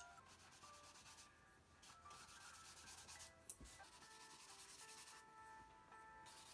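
Faint scrubbing of a paintbrush rubbing on paper while oil paint thinned with solvent is brushed out into swatches, in short strokes that come and go. Quiet music plays under it.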